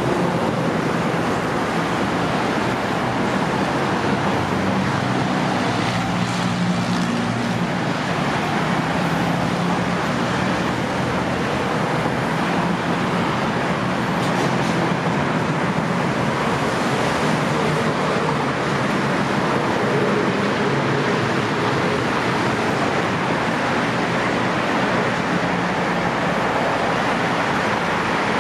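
Steady road traffic on a multi-lane road: cars passing with continuous engine and tyre noise, and a low engine hum swelling now and then as vehicles go by.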